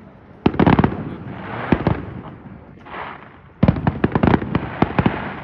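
Fireworks going off: a quick run of sharp bangs about half a second in, a few more near the two-second mark, and a dense volley of bangs and crackles from about three and a half seconds in. A rushing hiss fills the gaps between the volleys.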